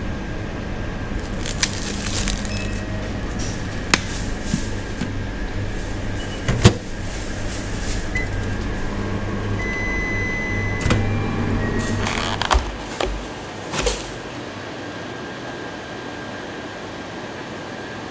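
Sanyo commercial microwave oven running with a steady low hum and scattered clicks and knocks. About ten seconds in it gives one long beep, the hum stops soon after, and a few knocks follow.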